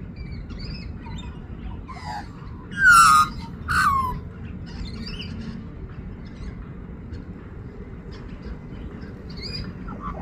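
Young Australian magpie vocalising: soft scattered warbling notes, with two loud harsh calls that fall in pitch about three seconds in.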